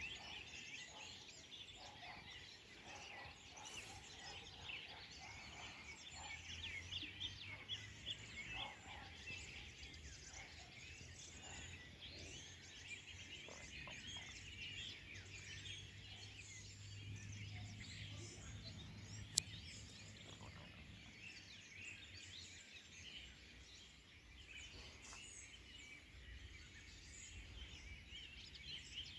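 Many small birds chirping in a dense, faint chorus over a low steady rumble, with one sharp click about two-thirds of the way through.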